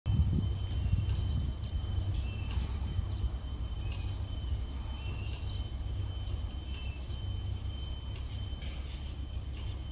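Outdoor field ambience: a steady, high insect drone sitting on two pitches, with scattered faint short chirps over a continuous low rumble.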